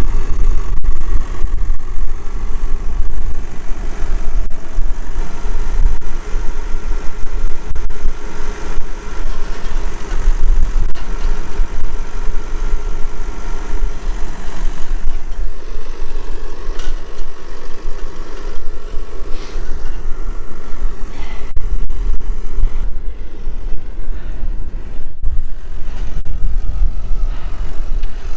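Versatile 150 tractor engine running steadily, under a loud, uneven low rumble that fits strong wind buffeting the microphone.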